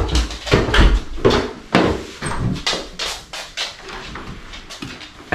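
Irregular knocks and clicks from doors being opened and from footsteps and a dog moving about a small entryway.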